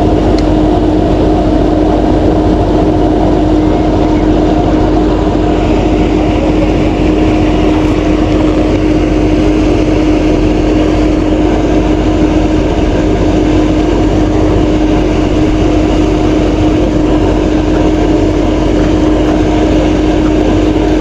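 A steady motor hum: one constant tone held over a dense rushing noise, unchanging throughout.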